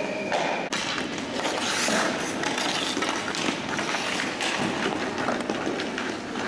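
Ice hockey skates scraping and carving on rink ice, with sharp clacks of sticks and puck scattered through it.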